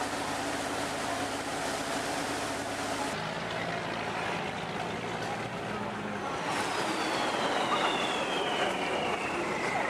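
Boat engine running steadily under rushing river water and wind noise, with an abrupt change in the sound about three seconds in. In the second half a high whine slowly falls in pitch.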